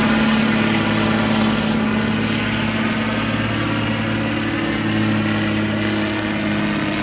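Semi truck's diesel engine under full load, pulling a weight-transfer sled in a truck pull, running at steady high revs with a constant pitch.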